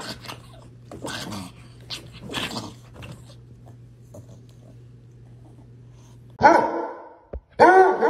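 Small dog making a few short, noisy vocal bursts in the first three seconds while a cat paws at it. About six seconds in, a basset hound gives louder, drawn-out howls that waver in pitch.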